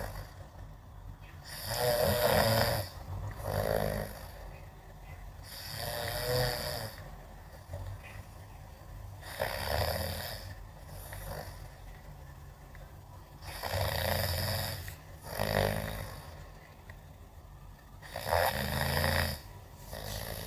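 A person snoring in a slow, even rhythm: a snore about every four seconds, most followed by a shorter, fainter one.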